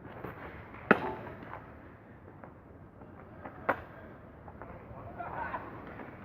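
Two sharp impacts about three seconds apart, with a few fainter knocks and faint voices in the background.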